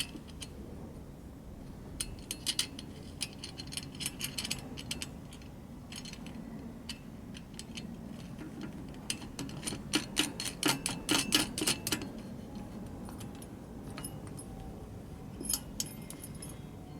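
Small metal chandelier parts clicking and clinking in the hands as the top piece is fitted and tightened by hand. The clicks come in two flurries of quick light clicks, one about two seconds in and a busier one around ten seconds in, with a few lone clicks near the end.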